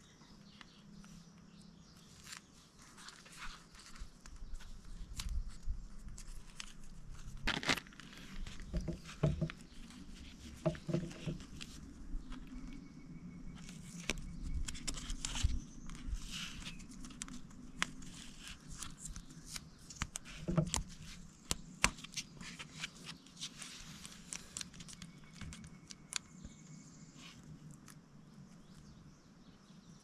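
Electrical tape being pulled off the roll and wrapped around wiring by hand: irregular crackling tears and handling rustles.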